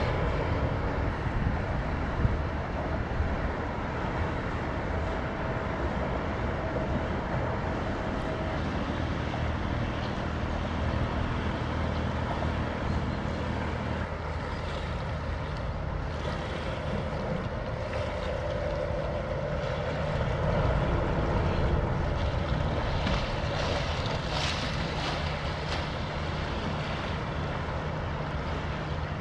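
The diesel engine of a 135 m inland motor cargo ship (1632 hp) running steadily as the ship passes, a low, even drone.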